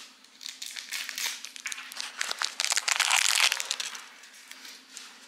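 A thin clear plastic wrapper from a Kinder Surprise toy crinkling as it is handled, in uneven bursts that are loudest around the middle and fade near the end.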